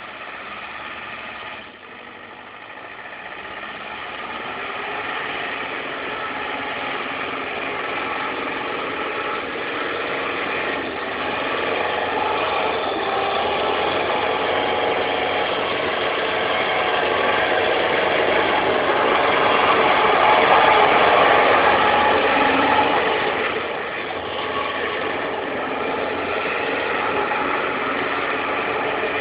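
Mercedes-Benz 814 truck's diesel engine running hard while the truck is slid sideways in a drift. It grows steadily louder to a peak about two-thirds of the way through, then drops back a little.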